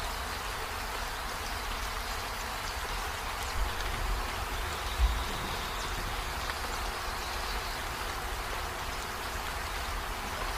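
A steady rushing background noise with two soft low thumps, about three and a half and five seconds in.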